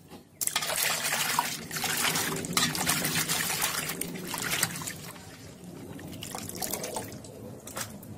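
Water sloshing and splashing in a steel basin as hands scrub and turn cut pieces of snakehead fish to wash them. It starts suddenly about half a second in, is loudest in the first half, and goes on more quietly after that.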